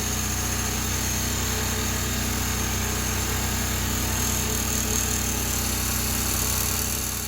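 Electric chainsaw chain grinder running steadily, its grinding wheel working a tooth on a very dull chain, with a constant motor hum and a high whine.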